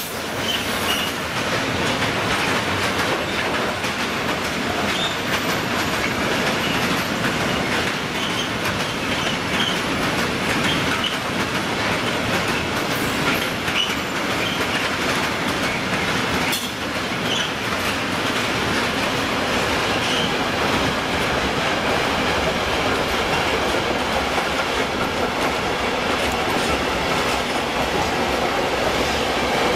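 Freight wagons, covered hoppers and then tank wagons, rolling past at close range: a steady clatter of wheels over the rail joints, with brief high wheel squeaks now and then.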